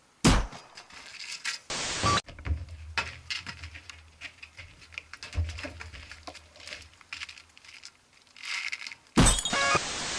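Thumps, scrapes and rustling of people moving about, with a loud burst of TV-static hiss near the end.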